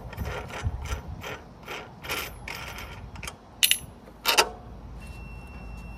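Plastic air cleaner cover being worked loose and pulled off a lawn tractor engine: a run of small plastic clicks and scrapes, then two sharper clacks about four seconds in.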